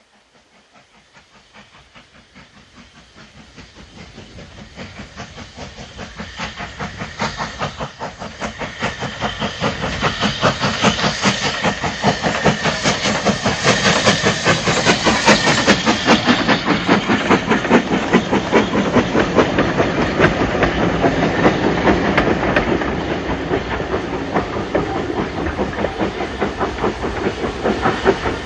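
LSWR Adams Radial 4-4-2T steam tank locomotive No. 30582 working a train, its rapid, even exhaust beats and steam hiss. The sound grows louder over the first ten seconds or so, then holds steady.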